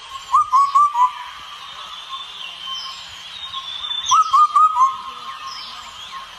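A bird whistling a short phrase of three or four quick, clear, upswept notes, heard twice about four seconds apart, over a steady high-pitched background hiss.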